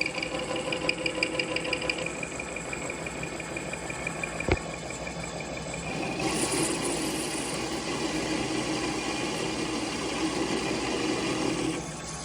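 Metal lathe parting off a workpiece with a worn parting insert: a steady cutting noise over the running lathe, with a pulsing high squeal in the first two seconds and a single sharp click partway through. About halfway through, the cut turns louder and rougher, which the machinist calls crunchy and blames on the old insert giving out. The cutting stops just before the end.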